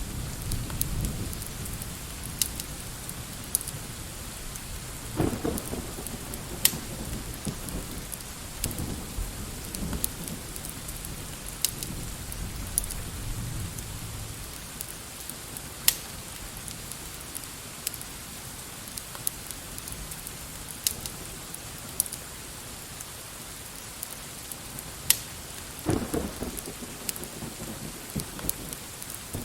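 Steady rain hiss with the crackle of a fireplace: sharp, scattered pops every few seconds. Low rumbles come about five seconds in and again near the end.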